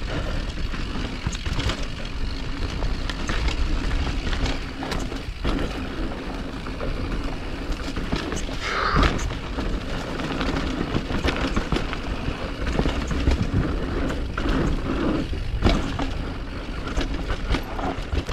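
Mountain bike ridden fast down a rough trail: constant wind rush on the microphone with tyre noise and frequent knocks and rattles from the bike over the ground.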